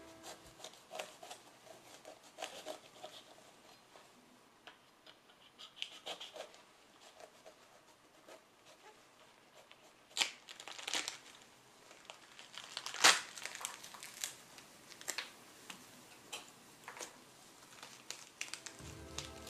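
Close-up handling sounds of paper and art materials: crinkling and rustling with scattered light taps and clicks, a sharp click the loudest about 13 seconds in.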